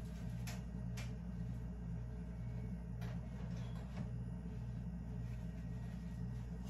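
Light clicks and taps from handling breaded chicken pieces in a foil tray, four of them, over a faint steady low hum.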